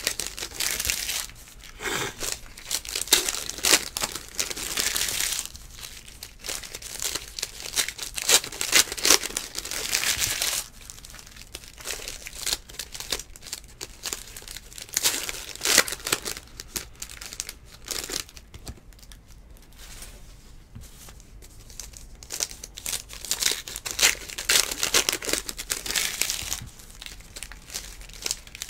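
Donruss Elite football trading cards being flipped through and shuffled by hand, with foil pack wrappers crinkling: an irregular run of rustles and snaps, with a quieter stretch about two-thirds of the way in.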